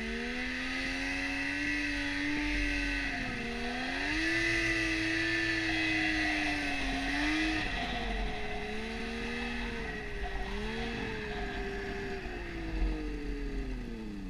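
Yamaha snowmobile engine running under the rider as the sled crosses powder, its pitch rising and falling with the throttle: a dip about three seconds in, a climb, then lower, uneven running in the second half.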